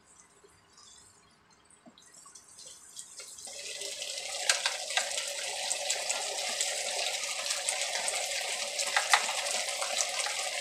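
Red sauce in a wok bubbling and sizzling, with scattered small pops; it starts about two seconds in and builds to a steady level by about four seconds.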